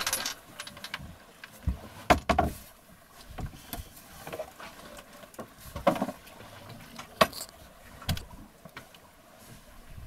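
Clattering knocks and clinks of rummaging for tools in a sailboat's cockpit locker, its wooden lid lifted and let down. A few sharp knocks stand out, about two seconds in and again around six and seven seconds.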